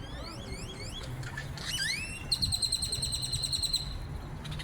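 Great-tailed grackles calling: a run of quick rising whistled glides, then about a second and a half of fast, ratcheting rattle, like the winding of an old Kodak film camera.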